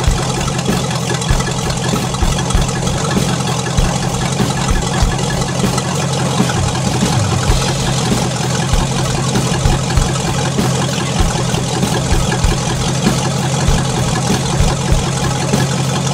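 The 1982 Pontiac Trans Am's carbureted V8 engine idling steadily.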